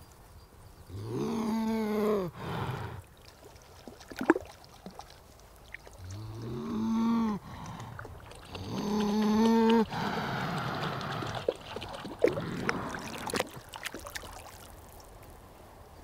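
Beaver vocalising: three drawn-out whining calls, each rising in pitch at the start and then held, with a few sharp clicks between them and a stretch of rough hissing noise after the third call.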